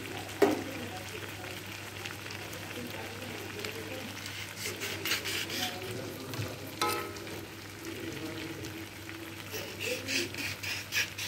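Devilled chicken sizzling in a metal wok while a spoon stirs and scrapes against the pan. The spoon knocks the pan sharply just after the start and clanks again about seven seconds in, ringing briefly.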